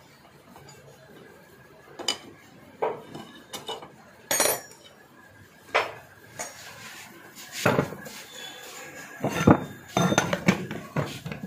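Metal clinks and knocks of a Bedford truck starter motor's parts being handled as it is taken apart: the field-coil housing is pulled off the armature and the pieces knock together. Starting about two seconds in, a string of separate sharp knocks, thickest near the end.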